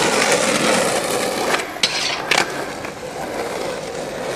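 Skateboard wheels rolling steadily, with a few sharp knocks about two seconds in.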